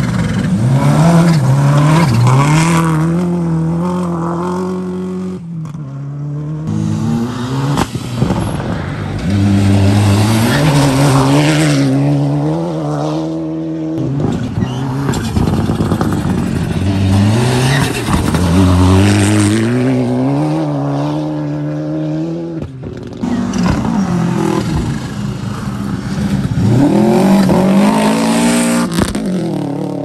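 Rally cars, among them Subaru Imprezas and a Mitsubishi Lancer Evolution, passing one after another on a gravel stage, about four in all. Each engine revs hard and climbs through its gears as the car accelerates out of the corner.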